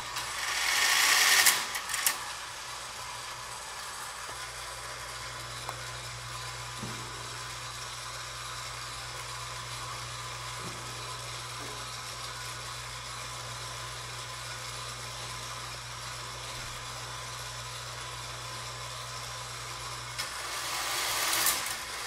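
Small electric motor and steel gearing of an Erector-set parachute jump model running with a steady hum. The whir swells up at the start and breaks off in a few clicks about two seconds in, and swells up again near the end.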